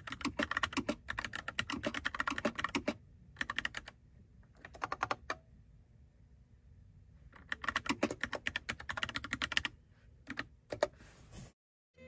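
Typing on the Freewrite 3rd-generation smart typewriter's mechanical keyboard: runs of rapid key clicks with a few scattered strokes and a quiet pause in the middle, stopping just before the end.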